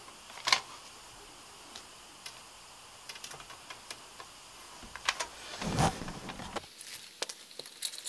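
Thin metal wires of a lamp's shade frame clicking and rattling as they are handled, with fabric rustling against them. A sharp click comes about half a second in, and a louder scraping, rustling stretch near six seconds.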